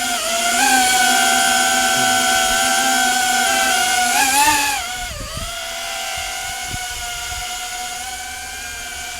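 DJI Avata 2 FPV drone's propellers whining as it flies, a steady pitched buzz that wavers briefly, dips in pitch about five seconds in, and is quieter after that.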